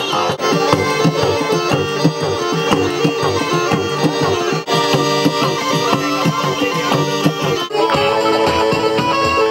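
Lively instrumental music with several instruments over a steady beat.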